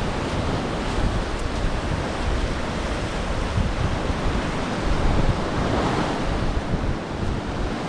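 Wind buffeting the microphone in gusts over a steady wash of surf.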